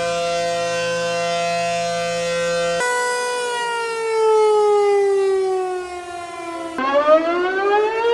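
Outdoor tornado warning sirens, three in turn: the first holds one steady tone, about three seconds in a second siren slowly winds down in pitch, and near the end a third one rises in pitch.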